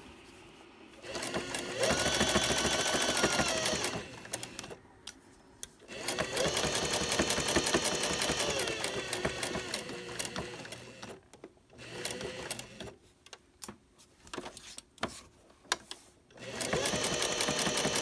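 Computerized sewing machine stitching a straight seam in four runs of a few seconds each, with short stops between them. The motor's whine rises as it speeds up and falls as it stops, over a rapid chatter of needle strokes.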